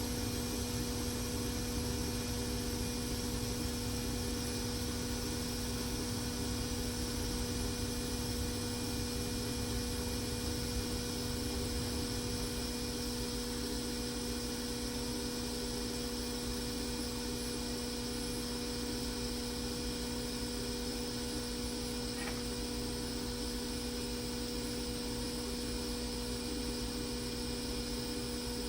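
Steady electrical hum, with a low tone and its octave above it, over a constant even hiss.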